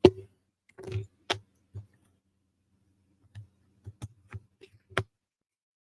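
Small wooden puzzle-box parts clicking and knocking as they are handled and fitted together: about ten short, sharp taps at uneven intervals, the loudest at the start and about five seconds in.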